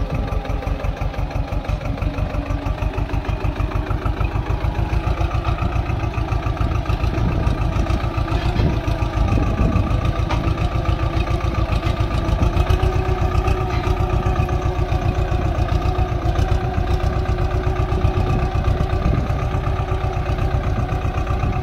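Swaraj mini tractor's diesel engine running steadily under load with an even, rapid beat as it pulls a single-bottom mouldboard plough through the soil.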